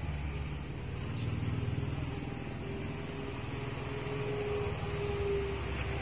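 Steady low rumble of a motor vehicle's engine running, with a faint steady hum added for a few seconds in the second half.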